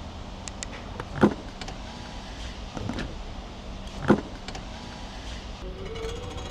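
A Rolls-Royce Cullinan's electric motor, such as a power window, running with a steady hum and small clicks. Two loud, sharp thuds about three seconds apart are the loudest sounds.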